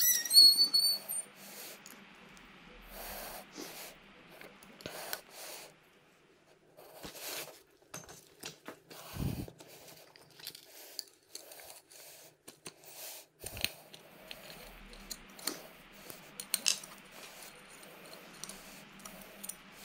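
Allen key working the bolts of an electric scooter's split wheel rim loose: scattered small metal clicks and clinks with handling noise, and a dull knock about nine seconds in.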